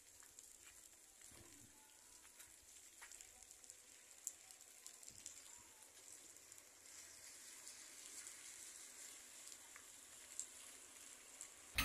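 Faint, steady rain with a few isolated drip clicks.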